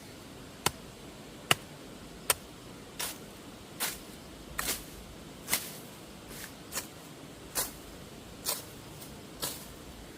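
A steady rhythm of short strokes, about one every 0.8 seconds: three sharp knocks, then brushier swishing or scraping strokes, as from repeated manual work.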